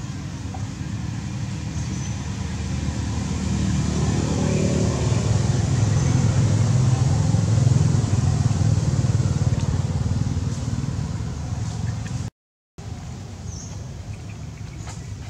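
A motor vehicle's engine going by: a low rumble that grows louder over several seconds, is loudest about halfway through, then fades. Near the end the sound cuts out for a moment, and a quieter steady rumble carries on after it.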